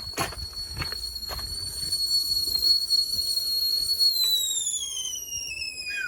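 Whistling kettle at the boil: one steady high whistle that slides down in pitch after about four seconds and fades, with a short lower falling whistle near the end. A few knocks sound in the first second and a half.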